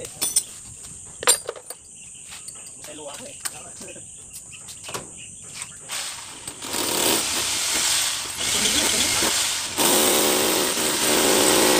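Electric drill boring into a concrete wall, running from about halfway through in two long stretches, the second louder. Before it come a few scattered knocks and clicks.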